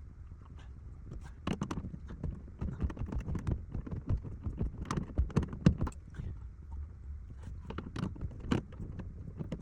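Irregular knocking and clattering of hard objects: a couple of dozen short knocks and clicks, starting about a second and a half in and loudest about halfway through.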